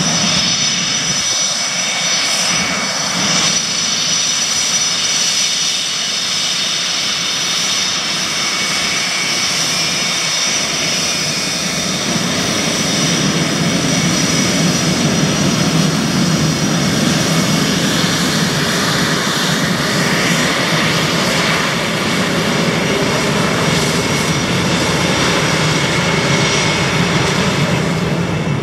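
Twin General Electric F404 turbofans of a CF-18 Hornet running at taxi power as the jet taxis past: a steady high turbine whine over jet rumble. The rumble grows a little louder about halfway through.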